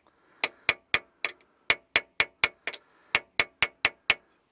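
Claw hammer tapping a steel transfer punch, about fifteen light, quick strikes at roughly four a second, some with a brief metallic ring, stopping just before the end. The punch is turned between blows to mark the centre of a broken bolt in the engine block for drilling.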